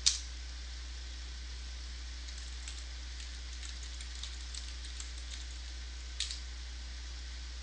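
Faint computer keyboard keystrokes, a few scattered clicks with a sharper one at the start and another about six seconds in, over a steady low electrical hum.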